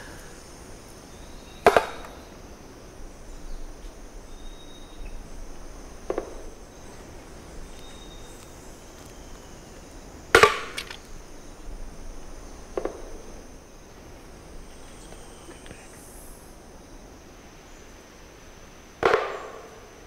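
Wooden double-knocker box struck hard with a wooden stick three times, about eight or nine seconds apart, imitating a Campephilus woodpecker's double knock. Fainter knocks come between the strikes, a pale-billed woodpecker answering. A steady high insect hum runs underneath.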